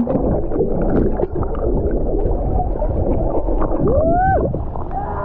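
Waterfall: a steady rush of falling water. About four seconds in, a short voice call rises and falls over it.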